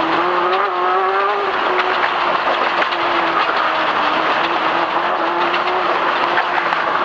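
Off-road desert race car's engine running steadily under load as it drives a rocky dirt trail, its pitch climbing a little about a second in, then easing back. Scattered short knocks and rattles from the chassis going over the rocks.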